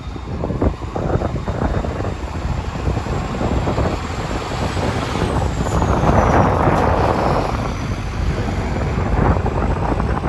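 Wind buffeting the microphone over a low, steady rumble, with a louder rush of noise a little past the middle.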